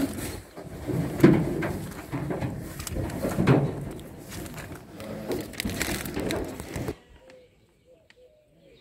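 Plastic sheeting crinkling and rustling in irregular bursts as a cloth is spread and smoothed over it by hand; it cuts off suddenly about seven seconds in.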